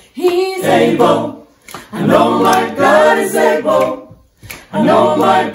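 A small group of men and women singing a gospel song together a cappella, in phrases broken by two short pauses.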